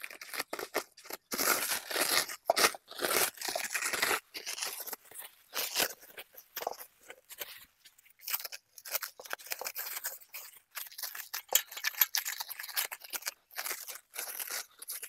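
Clear plastic stretch wrap being torn and pulled off a stainless-steel honey extractor by hand, crinkling and tearing in irregular bursts, busiest in the first few seconds and more scattered after.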